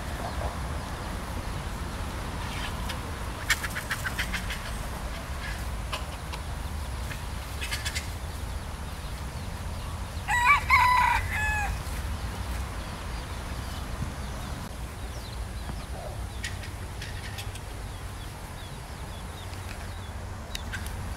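Red junglefowl rooster gives one short crow about halfway through, with a quick run of clucks a few seconds before it. A steady low rumble sits underneath.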